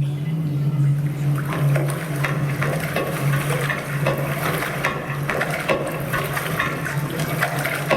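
A steady low hum under a dense layer of crackling, clicking noise.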